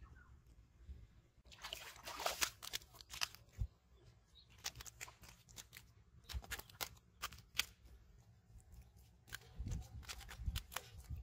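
Irregular sharp crunches, clicks and slaps on wet mud from landed carp flopping and being handled on the line, with a few duller thumps near the end.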